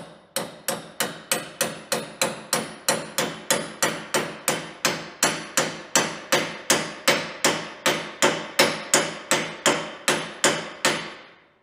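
Hammer tapping steadily, about three blows a second, on an old bolt used as a drift to drive a new bushing into a trailer's suspension equalizer. Each blow rings briefly, and the tapping stops shortly before the end.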